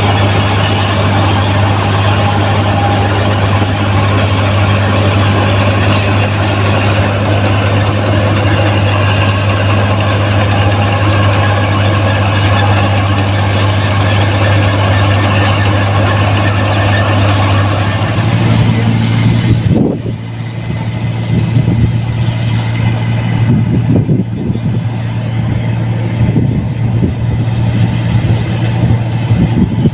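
Rice combine harvester running under load, with a steady engine drone and the whirring clatter of its machinery. About two-thirds of the way through, the engine note steps up slightly and the higher whirring falls away, leaving the engine with scattered knocks.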